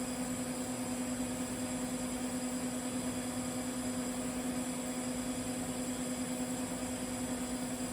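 TIG welding arc running steadily on carbon steel pipe: an even hum with a constant hiss and no breaks.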